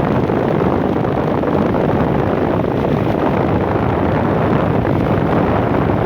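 Electric fan running steadily, its air stream blowing on the microphone as a loud, even rushing noise.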